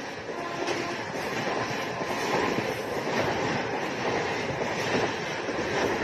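Double-decker passenger train passing at close range: a steady noise of coaches and wheels running along the rails.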